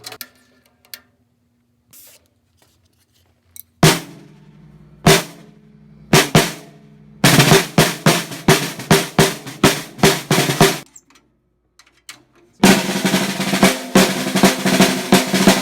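A 5x14 aluminum snare drum fitted with an Evans Calftone head being played. There are a few single strokes about four to six seconds in, then a run of quick strokes. After a short pause, a dense snare roll starts near the end. Each stroke rings with a low steady tone under the buzz of the snare wires.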